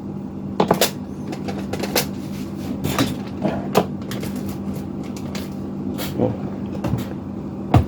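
Scattered small clicks and taps of a Wi-Fi card's metal bracket, screws and pliers being handled, the loudest near the end, over a steady low hum.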